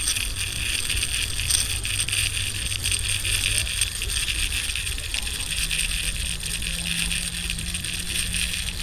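Small digital-brake baitcasting reel running on a cast with a frog lure: a steady high whir with fine fast ticking from the spool and gears.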